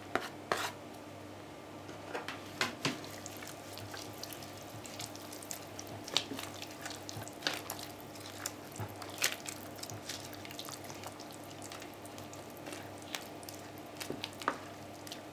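A spatula stirring thick chicken and tomato stew with fresh herbs in a multicooker bowl: irregular clicks and scrapes against the bowl over a faint steady hum.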